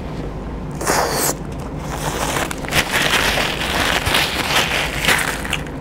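Paper tissue rustling and crinkling as it is rubbed across the mouth, over close-miked chewing. A short rustle about a second in, then a longer run of crackly scratching.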